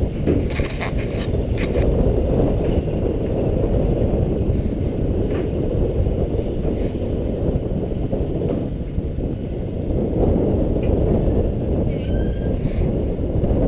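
Steady low rumble of a moving passenger train, heard from aboard a car as its wheels run over the rails, with a few light clicks in the first couple of seconds.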